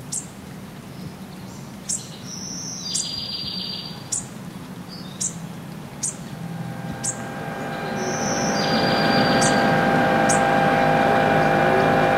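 Small birds chirping, short high chirps about once a second with a couple of brief trills. About halfway through, background music of sustained notes fades in and becomes the loudest sound.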